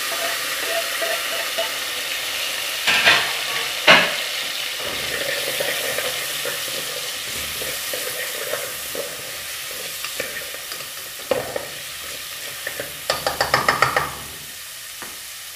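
Grated carrot and garlic sizzling in oil in an aluminium pot, stirred with a wooden spoon. There are two loud knocks about three and four seconds in, and a quick run of taps near the end as the spoon works against the pot.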